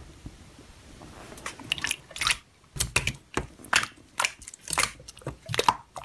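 Hands squishing and pressing a glossy clear slime, making short wet, sticky squelches and pops about two a second, starting about a second and a half in after a quieter stretch.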